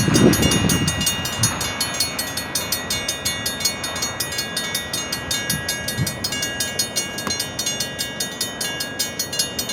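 Train rolling past a road crossing: the loud low rumble dies down about a second in, leaving a rapid, even clicking with steady high ringing tones that keep on.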